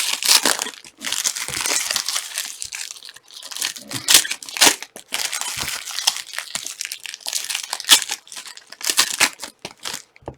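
Foil trading-card pack wrappers crinkling and tearing as packs are opened and handled, in irregular bursts with a few sharp clicks.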